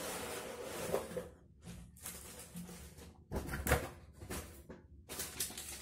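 Rustling and crinkling of packaging as hands handle a cardboard box and the plastic-wrapped scale inside it, in several short bursts with brief pauses between them.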